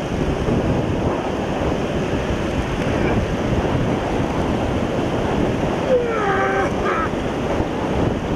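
Shallow surf breaking and washing around the waders' legs, with wind buffeting the microphone. A brief cry, falling in pitch, cuts through about six seconds in.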